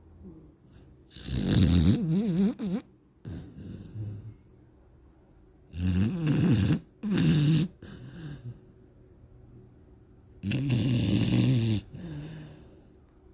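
Pit bull snoring: four loud snores, each about a second long, the second and third close together, with softer breaths between.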